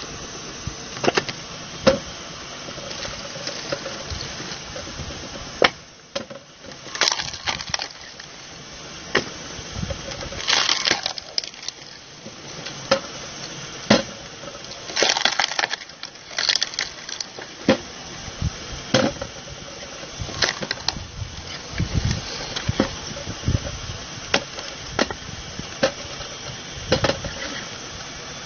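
Homemade screw-cone log splitter at work: its belt-driven threaded cone runs steadily under a motor hum while log sections are pushed onto it, giving sharp cracks and knocks of splitting wood every second or two, some in short crackling runs as a log bursts apart.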